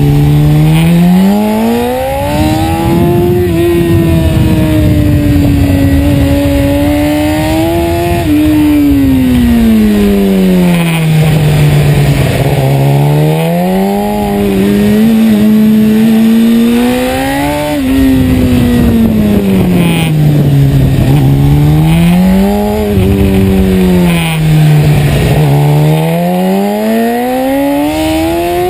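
BMW S1000RR inline-four engine heard from on board at track speed, its note climbing hard under acceleration and falling back on the brakes several times over, with steady wind rush.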